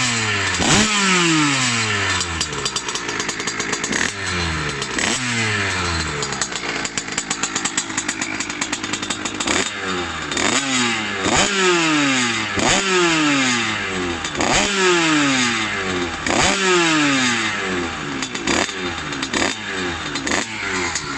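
2Fast 77cc two-stroke single-cylinder engine on an HM CRM motorcycle, revved again and again through an expansion-chamber exhaust. Each time the revs snap up and fall away, with a short, calmer stretch near the middle before the blipping picks up again.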